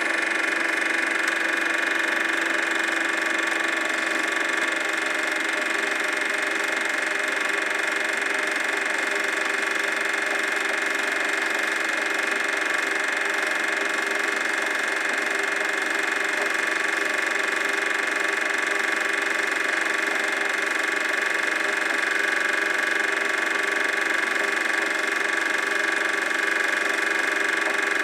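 Super 8 film projector running: a steady mechanical whirr with several constant pitched hums.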